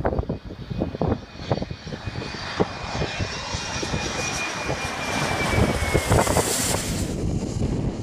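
Hawker Beechcraft 750 business jet's twin turbofans passing low overhead on landing approach: a high whine that falls slightly in pitch as it goes over, with the jet noise building to its loudest near the end and then cutting off suddenly. Wind buffets the microphone throughout.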